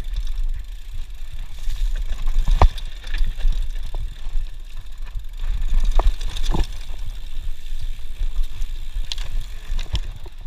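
Mountain bike ridden fast down a dirt trail: a steady low wind rumble on the camera's microphone, with tyre noise and sharp knocks and rattles as the bike hits bumps, the loudest knocks about two and a half and six seconds in.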